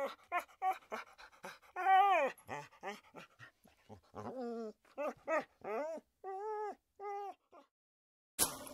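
A dog whimpering and yipping in a string of about a dozen short, whiny calls. There is a longer call about two seconds in that falls in pitch.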